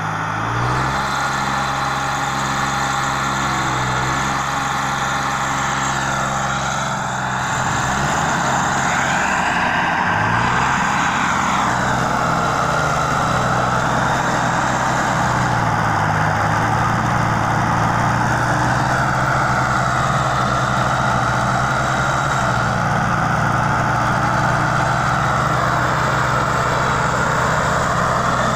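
Two diesel farm tractors, a Mahindra Arjun and a New Holland, running hard under heavy load as they pull against each other on a chain in a tug-of-war. The engine note rises and falls several times.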